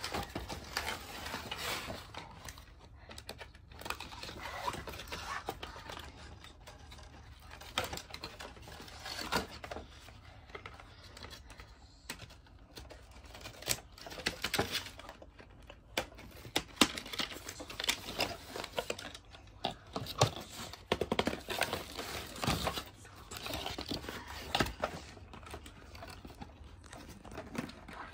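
Cardboard toy packaging being cut and pulled apart: irregular clicks, scrapes and rustles of cardboard and plastic, with scissors snipping.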